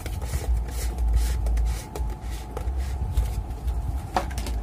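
Plastic exhaust-fan blade being pushed onto the motor shaft and locked in place by hand: scattered light clicks and knocks of plastic handling, with one sharper click about four seconds in, over a steady low rumble.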